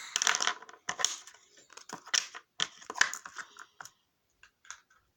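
Plastic slime container being handled and put back into its case: a run of irregular knocks, clicks and rustles that thins out in the last second or so.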